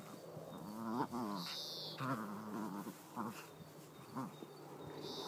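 Pinscher dog growling in play while tugging on a toy: short, wavering growls that rise and fall, repeated every second or so, with two brief high squeaks.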